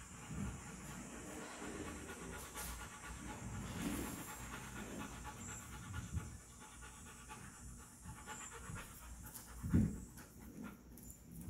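A dog panting steadily with an even, repeating rhythm. A single low thump sounds near the end.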